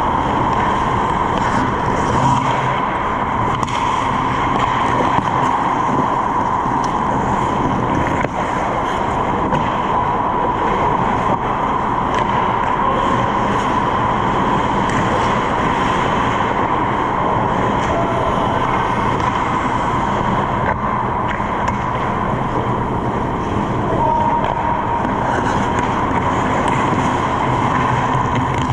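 Steady, loud background noise of an indoor ice rink during hockey play, with a low hum under it and a few faint clicks of sticks and puck on the ice.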